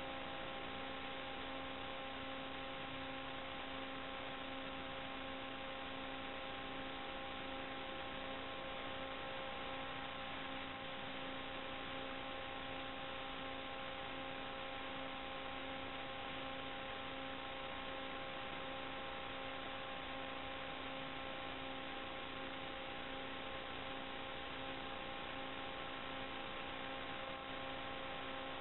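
Steady hiss with a constant electrical hum of several fixed tones. It does not rise or fall with the quad's manoeuvres: this is interference noise on an FPV video link's recorded audio track, not the motors.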